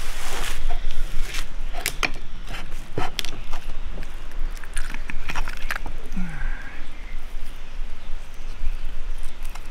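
Knife and fork clicking and scraping on a ceramic plate as a grilled quail is cut up, with a number of sharp clinks spread irregularly through.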